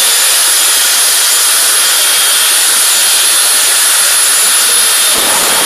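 Jet-powered drag car's turbine engine running: a loud, steady rush with thin high whistling tones. About five seconds in, a deeper, fuller blast joins it as the afterburner lights.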